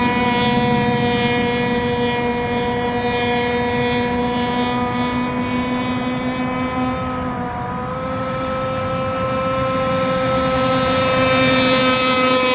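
Radio-controlled race boat's small engine running at high, steady revs, a buzzing drone that dips briefly about two-thirds of the way through and then grows louder near the end.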